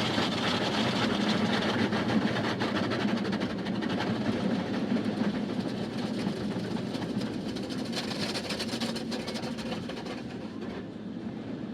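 Conveyor-type automatic car wash working over the car, heard from inside the cabin: a steady rushing and rapid clattering over a low machine hum, gradually getting quieter toward the end.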